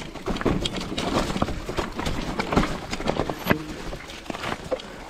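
Electric mountain bike riding over a rocky, stony trail: tyres clattering on loose stones with irregular knocks and rattles from the bike.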